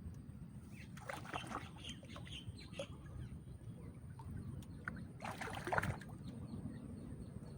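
Water splashing in two short bursts, about a second in and again about five seconds in, as a hooked catfish is played and brought in at the surface, over a steady low rumble of wind on the microphone.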